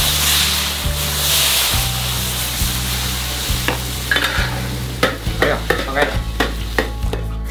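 Beer poured into a hot wok of frying meat, a loud sizzle and hiss of steam that is strongest in the first two seconds and then eases off. From about five seconds in, a metal spatula scrapes and knocks against the wok as the stew is stirred.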